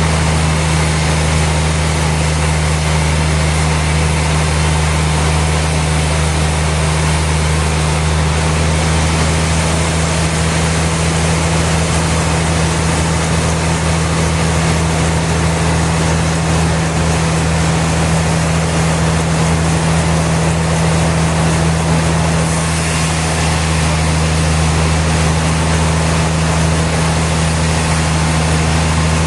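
Sawmill machinery running steadily: a loud, even mechanical drone with a constant deep hum and hiss that does not change.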